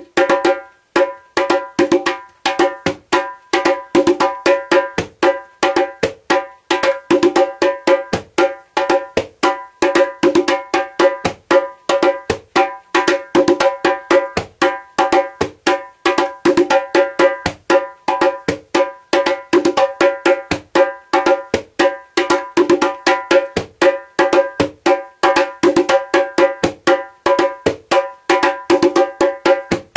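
Djembe played with bare hands on its skin head: a steady, fast rhythm of several strokes a second, the djansa rhythm, each stroke ringing with a clear pitch.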